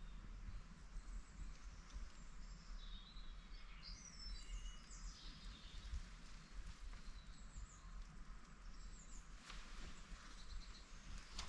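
Small woodland birds chirping and calling faintly, a few short rising and falling calls, over a low steady outdoor background noise.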